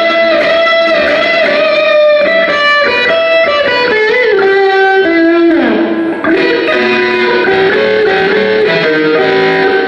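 Electric guitar playing a lead solo phrase: sustained single notes with bends, vibrato and slides, including a downward slide about five to six seconds in.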